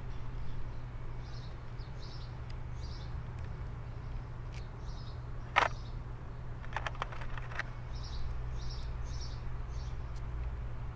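Small birds chirping in short repeated phrases, over a steady low hum. A sharp click comes about five and a half seconds in, and a quick run of small clicks follows a second later.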